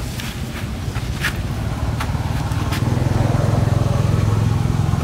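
A motor vehicle's engine running steadily, growing louder about three seconds in, with a few sharp clicks in the first half.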